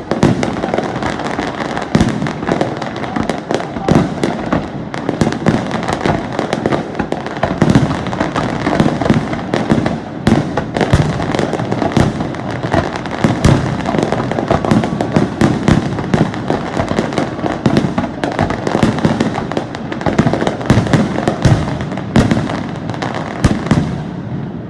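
Fireworks display: aerial shells bursting in rapid, continuous succession, a dense run of sharp bangs and crackles.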